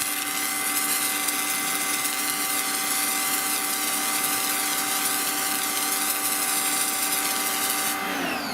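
Sunpow BCN-H electric pressure washer running, a steady motor and pump whine over the hiss of water spraying from the low-pressure soap nozzle. Near the end it cuts out and the whine starts to fall as the motor spins down.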